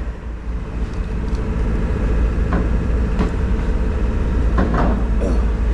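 A steady low mechanical hum like an idling motor, with two sharp clicks midway and a short clatter near the end.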